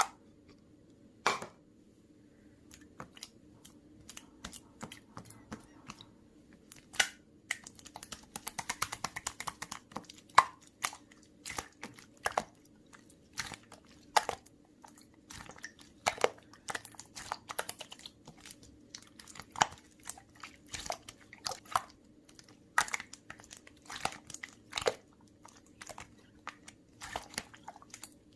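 Close-up chewing and biting of crunchy food: irregular crisp crunches and crackles, several a second in places, over a faint steady hum.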